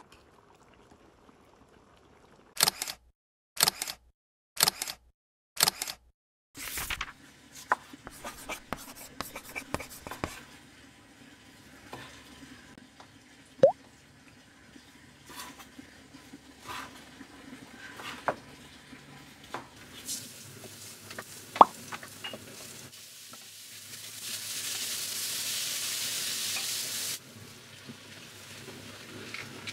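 Kitchen cooking sounds: four sharp knocks a few seconds in, then a knife chopping on a wooden cutting board among scattered utensil clicks, a steady hiss for a few seconds near the end, and a spatula stirring vegetables in a pan.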